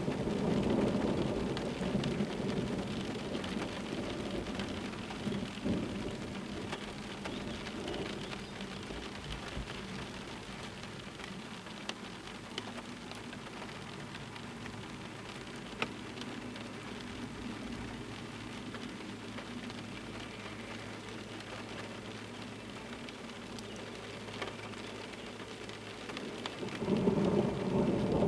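Steady rain with a few sharp drop ticks, and rolling thunder dying away over the first few seconds. Near the end a loud low rumble swells as a train rolls onto the steel truss railway bridge.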